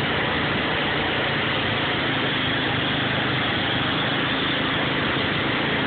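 Engine of the towing vehicle running steadily, pulling a rider through water, under a constant rush of churned water and spray.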